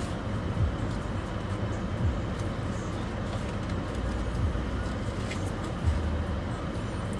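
Steady low rumble like a motor vehicle's engine heard from inside, with a few soft low thumps.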